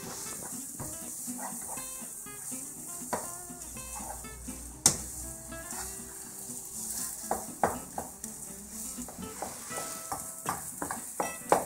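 Thick fish croquette dough being stirred and scraped with a spoon in a non-stick frying pan over a gas flame: the mixture sizzles steadily while the spoon scrapes and knocks against the pan, with one sharp knock about five seconds in. The dough is being cooked until it comes away from the pan on its own.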